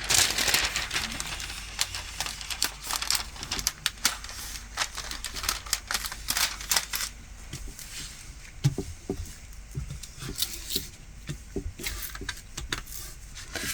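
Plastic crinkling and a patter of small clicks and rustles as a diamond painting glue canvas and its protective film are handled.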